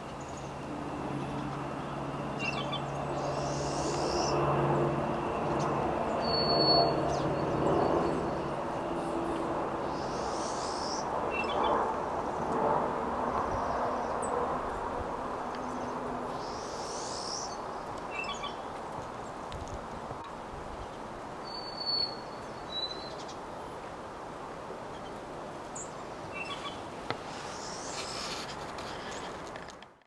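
Birds chirping now and then over steady outdoor background noise, with a low droning hum through the first half.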